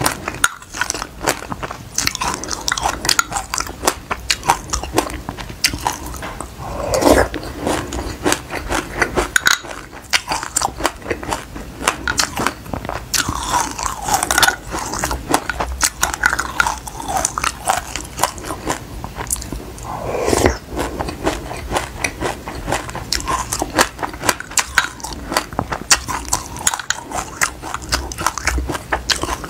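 Close-miked chewing of a mouthful of black sesame seeds with passion fruit: a dense, continuous run of tiny crunches and crackles.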